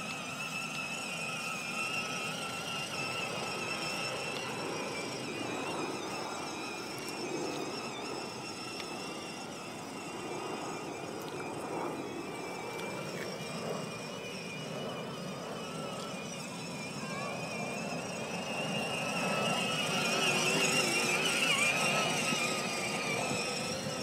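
Electric drive motors and gearboxes of a battery-powered ride-on toy Mercedes-AMG whining steadily as it drives over grass. The whine grows louder about three quarters of the way in.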